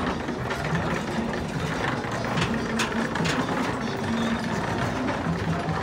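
Footsteps clattering on a metal gangway, scattered sharp clicks over a steady low hum of ambient noise.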